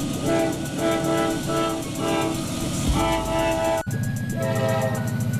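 K5LA air horn on a CSX AC44CW diesel locomotive sounding in a run of short blasts over the rumble of the approaching train. About four seconds in, the sound cuts sharply to a steady low diesel engine drone from a locomotive passing close by.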